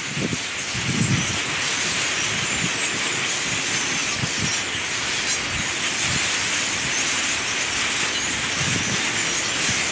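A huge flock of grackles calling all at once from a tree: a dense, steady wash of squeaky chatter with no single call standing out, and a few low thumps underneath.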